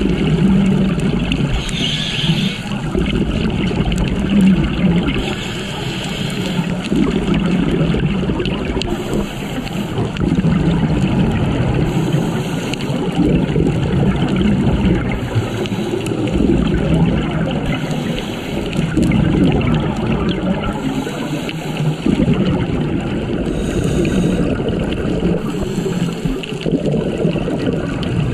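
Scuba diver breathing through a regulator underwater: a short hiss on each inhale every three to four seconds, between rumbling, gurgling stretches of exhaled bubbles.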